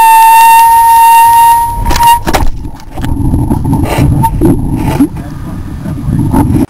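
Air noise picked up by a high-power rocket's on-board camera in flight. First comes a loud, steady high whistle, then a couple of sharp cracks about two seconds in as the parachute deploys, then heavy wind buffeting with scattered clicks and rattles as the rocket hangs under its open chute, cut off abruptly near the end.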